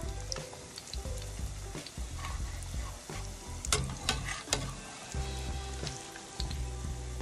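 Salmon patties sizzling as they fry in oil in a Gotham nonstick frying pan, with a metal slotted spatula scraping and clicking against the pan as it works under the patties; a few sharper clicks come about four seconds in.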